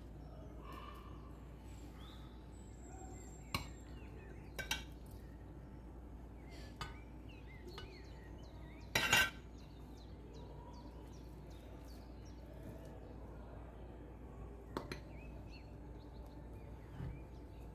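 Metal tongs and serving utensils clinking against a ceramic plate a few times as food is laid on it, the loudest clatter about nine seconds in. Faint bird chirps in the background.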